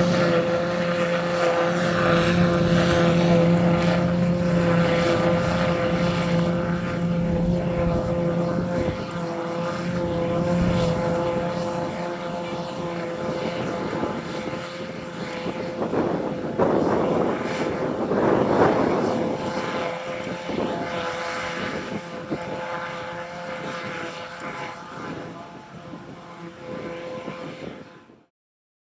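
Tractor engines and a JF FCT 850 trailed forage harvester running steadily while chopping grass and blowing it into a trailer, a steady hum with a rushing swell partway through. The sound cuts off abruptly just before the end.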